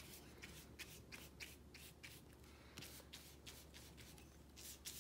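Flat bristle paintbrush brushing wet black paint onto a sheet of paper in short strokes: faint, soft scratchy swishes, two or three a second.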